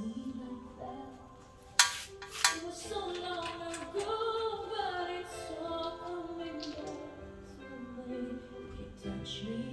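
Background music with a sung melody, broken by two sharp knocks about two seconds in, half a second apart.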